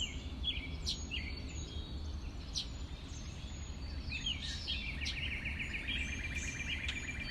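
Wild birds singing: scattered short chirps, then from about five seconds in a fast, even trill that runs on, over a steady low rumble.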